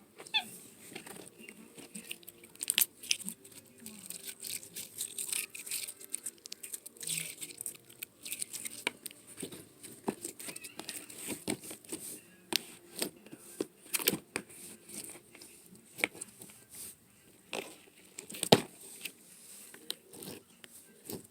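Slime being squeezed and pulled by hand: irregular sticky crackles and clicks, with a few louder snaps.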